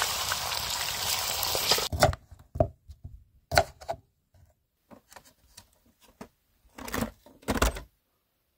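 Potato sticks sizzling in hot oil in a frying pan for about two seconds, then a knife cutting vegetables on a wooden cutting board: a string of irregular knocks, with a louder pair near the end.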